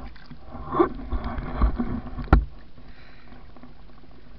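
Muffled underwater water-and-handling noise as a speared squid is gripped on the spear shaft, swelling for about a second and a half and ending in one sharp click, like the shaft knocking against the camera housing, a little over two seconds in.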